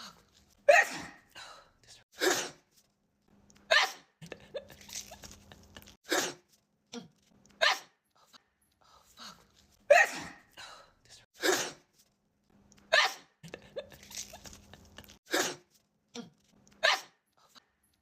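A woman sneezing over and over in a sneezing fit: about ten short, sharp sneezes, roughly one every second and a half, with quick breaths between them.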